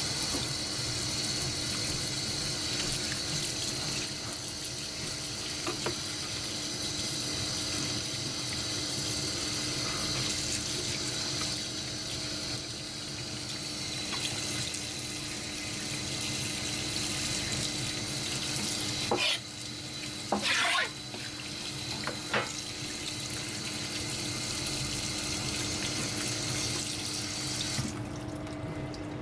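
Kitchen tap running steadily into a stainless-steel sink while hands rinse seafood on a plastic cutting board under the stream, shutting off near the end. A few sharp knocks about two-thirds of the way through.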